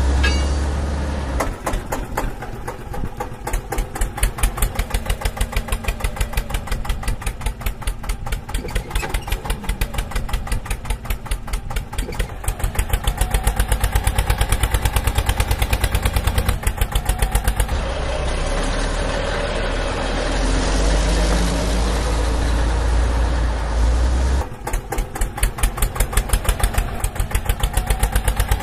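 Diesel vehicle engine running with a fast, even chug. About 18 seconds in it changes to a steadier rumble for several seconds, then chugs again near the end.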